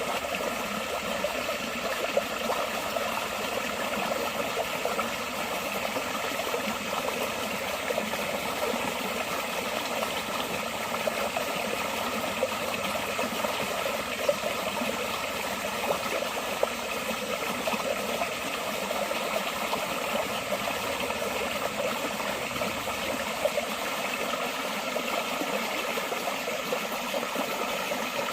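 Water flowing steadily in a small stream, an even, unbroken babbling with small splashes here and there.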